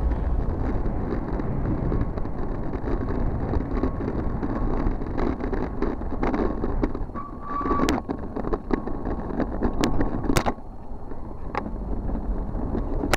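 Riding noise of a bicycle ride through city traffic in the rain: a steady, uneven rush of wind on the microphone mixed with passing traffic. There is a brief high squeal about seven seconds in, and a few sharp clicks later on.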